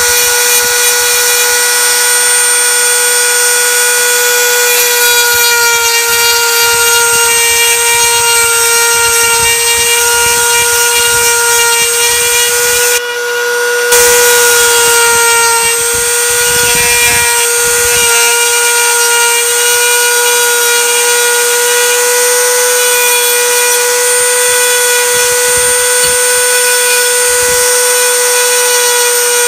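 Dremel rotary tool with a small abrasive stone running at high speed, grinding the acrylic of an orthodontic Bionator appliance: a steady high-pitched whine that briefly dips about halfway through.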